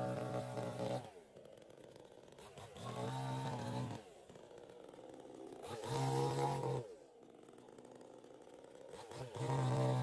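Chainsaw engine running in repeated surges, about every three seconds: the throttle is opened to high revs, then released, and the engine winds down toward idle between bursts.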